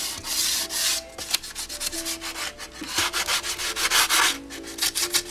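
A soft sanding block rubbed by hand over a primed motorcycle fairing in uneven back-and-forth strokes, each stroke a short hiss. This is block-sanding the primer to follow the part's contours before the next coat of primer.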